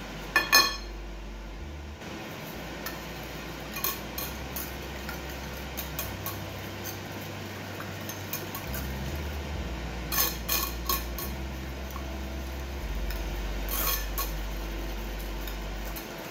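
A utensil stirring and whisking a wet egg mixture in a glass bowl, with sharp clinks as it strikes the glass. The clinks come in clusters, loudest about half a second in and again around ten seconds in.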